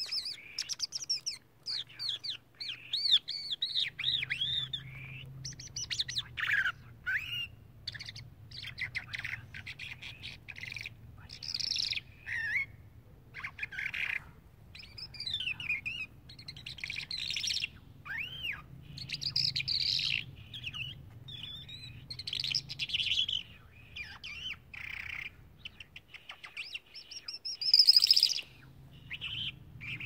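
A caged lark singing a long, varied song of quick chirps, slurred whistles and trills with short breaks, loudest in a burst a little before the end.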